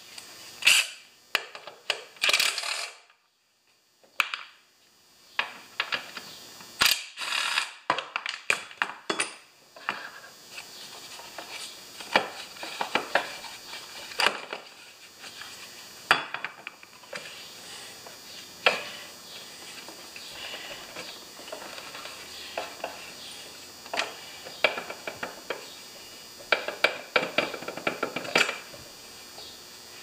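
Metal parts clinking and tapping as a lawnmower blade, its bolt and the blade adapter are taken off and handled, with a short burst from a cordless drill near the start.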